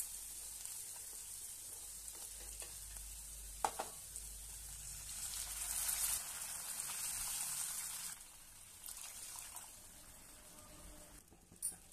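Onions, cashews and dals sizzling in oil in a non-stick kadai, with a knock of the spatula about four seconds in. Then water is poured into the hot pan: a louder hissing gush for about three seconds that drops suddenly to a quieter sizzle.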